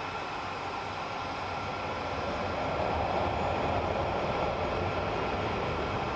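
Jet airliner engines running: a steady roar with a thin high whine over a low rumble, growing a little louder about two seconds in.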